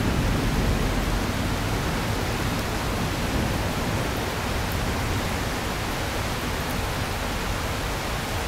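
Heavy rain falling steadily as an even hiss, with the tail of a thunder rumble dying away in the first second.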